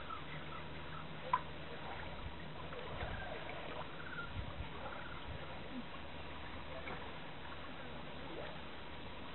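Low, steady wind and water noise on the deck of an anchored boat, with a faint hum early on and a single sharp click about a second in.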